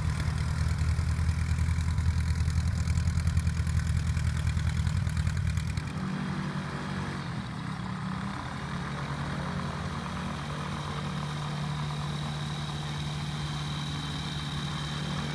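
Small taildragger airplane's piston engine running loudly as it taxis on grass. About six seconds in it gives way to the quieter, steadier hum of a weight-shift trike ultralight's engine idling as it taxis.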